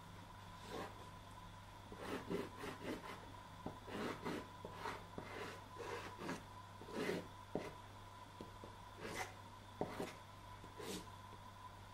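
Soft pastel stick scraping and rubbing across the grain of a primed linen board in short, irregular strokes.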